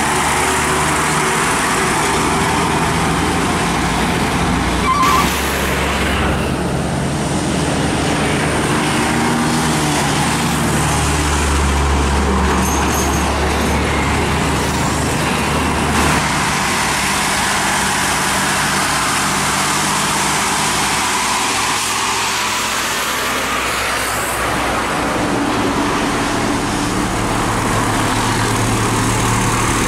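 Heavy trucks and other traffic passing one after another on a busy highway: engines running over a steady roar of tyre noise. One engine note after another comes and goes as each vehicle passes.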